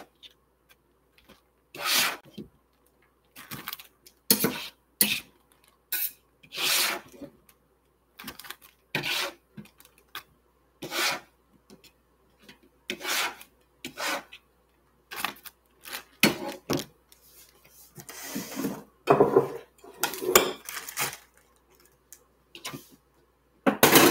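Knife blade scraping diced papaya across a cutting board in a series of short, separate scrapes about a second apart, along with the crinkle of a plastic zip-top bag as the pieces are pushed in.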